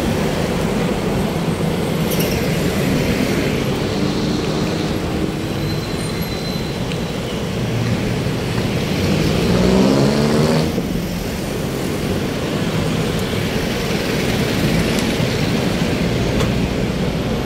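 City road traffic: a steady rumble of passing vehicles, with one engine revving up and passing loudest about ten seconds in.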